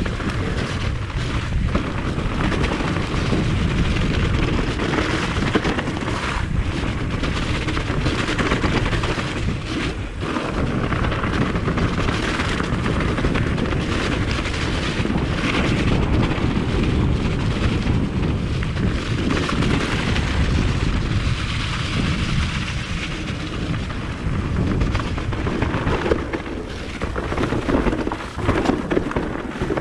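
Wind buffeting the microphone over the constant rumble and rattle of an electric mountain bike riding a rough trail, with frequent knocks from the bumps.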